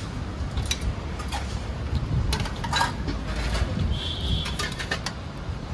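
Dishes and cutlery clinking now and then in an eatery, over a steady low traffic rumble. A brief high tone sounds about four seconds in.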